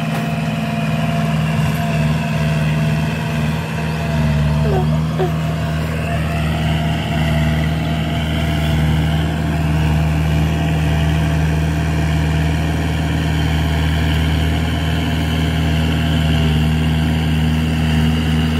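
Farm tractor engine running steadily as it works a rotavator through the field, a constant low hum.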